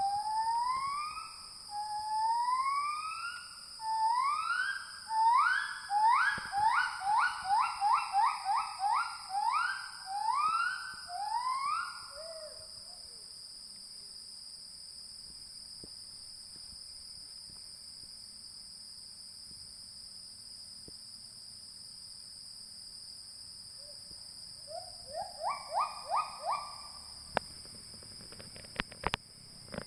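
An unseen animal giving a series of whistle-like calls, each note sliding upward, the notes coming faster in the middle of the run and stopping about twelve seconds in; a shorter run of the same calls returns near the end. Insects keep up a steady high drone throughout, with a few sharp clicks near the end.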